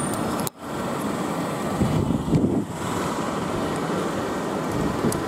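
Steady running noise of a South Western Railway Class 450 Desiro electric multiple unit standing at the platform. The sound drops out abruptly for a moment about half a second in.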